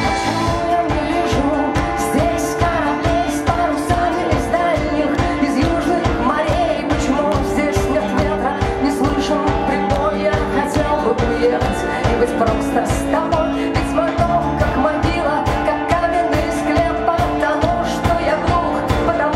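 Rock band playing live: drums keep a steady beat under bass and electric and acoustic guitars, with a woman singing the melody.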